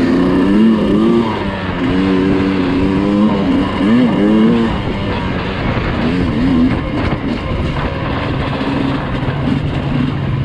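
Dirt bike engine revving up and down repeatedly for the first few seconds, then settling into a lower, steadier drone while riding a trail, with rough wind and terrain noise throughout.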